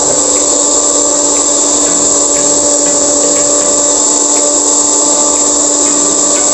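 Electric hand mixer running at one steady speed, its motor giving a constant whine as the beaters whip egg whites and cream of tartar into meringue.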